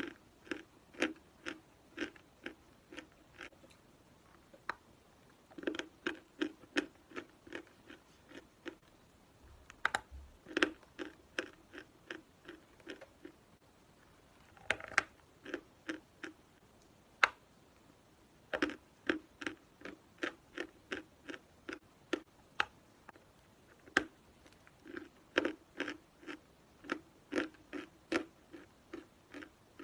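A person chewing dry chalk close to the microphone: crisp crunches at about two to three a second, in runs broken by short pauses, with a few sharper single snaps as fresh bites are taken.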